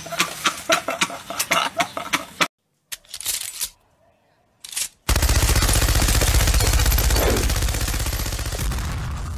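A man laughing, then after a short pause a long burst of rapid machine-gun fire that gradually fades away.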